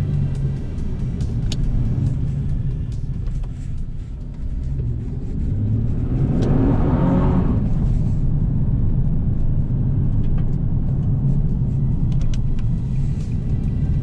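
2009 Nissan 370Z's 3.7-litre V6 and road noise heard from inside the cabin while driving, a steady low rumble that grows louder about five seconds in as the car accelerates, with a brief rush of noise a little later.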